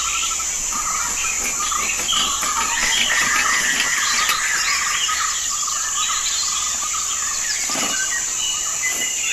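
Outdoor nature ambience: a steady high-pitched insect drone with many birds chirping over it.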